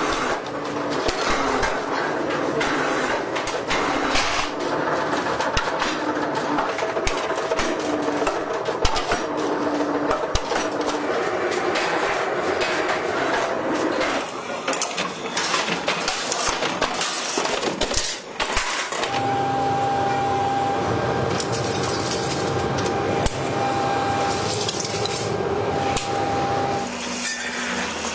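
Metal workshop clatter: thin metal sheets and discs clanking and knocking against metal, with machinery running. From about two-thirds of the way in, a steady machine hum with a high tone runs under the clatter.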